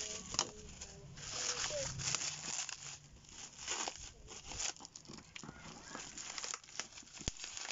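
Black plastic parcel wrapping crinkling and tearing as it is pulled open by hand, in irregular bursts of rustling.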